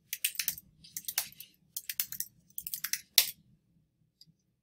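Computer keyboard being typed on: quick runs of key clicks for about three seconds, ending in one louder keystroke, then stopping.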